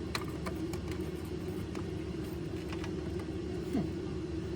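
A few faint clicks and taps of plastic blaster parts being handled and fitted together, over a steady background hum.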